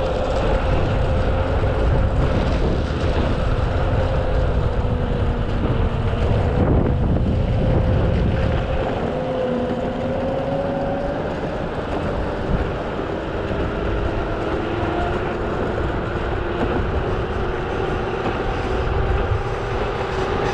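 Mototec 600W electric skateboard under way on rough, crack-sealed asphalt. Its rubber airless tires make a steady rumble that eases somewhat about nine seconds in. Over this, the electric drive's whine wavers and slowly shifts in pitch as the speed changes.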